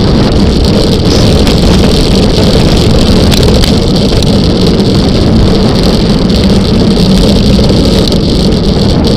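Loud, steady wind rushing over the microphone of a camera on a road bicycle descending at speed, with tyre and road rumble underneath.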